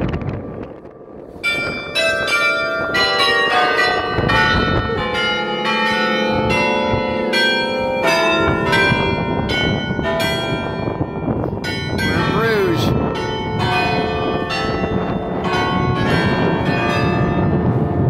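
Bruges Belfry carillon playing a tune: many bells of different pitches struck in quick succession, each ringing on. There is a short lull about a second in.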